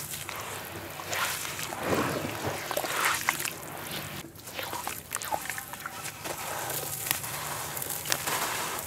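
Handfuls of grainy red dirt being crumbled and squeezed by hand in shallow water: wet sloshing and squishing with gritty crackles, in irregular swells as the hands dip and press.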